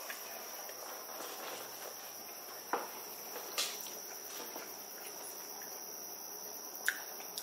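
A steady high-pitched tone over quiet room tone, with a few faint short sounds while a person chews a bite of fried catfish.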